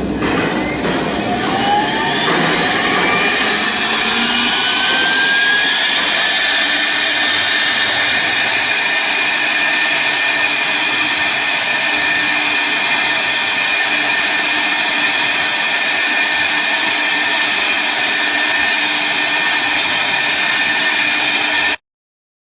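CNC router spindle motor spinning up, its whine rising in pitch over the first few seconds, then running steadily at speed. The sound cuts off suddenly near the end.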